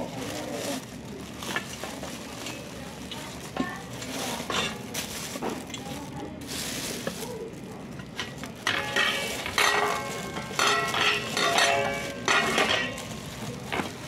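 Thin clear plastic bags crinkling and rustling in irregular bursts as they are handled and pulled off a newly unboxed cooking pot.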